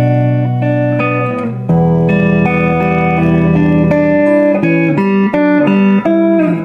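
Guitar played through a Mooer Skyverb digital reverb pedal with the pedal switched on: plucked notes and chords that ring on, changing every second or so.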